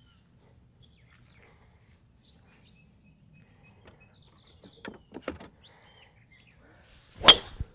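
Golf driver striking a teed ball: one sharp, loud crack with a brief ringing tail, coming after a few quiet seconds near the end.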